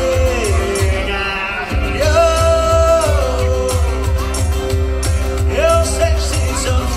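A man singing long held notes, amplified through a PA, over a strummed acoustic guitar with a steady low beat underneath.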